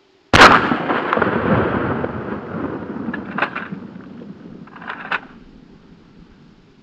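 A single blast from a Remington 870 12-gauge pump shotgun firing 00 buckshot, about a third of a second in, with a long echoing rumble that dies away over about five seconds. Two brief clusters of clicks come during the fade.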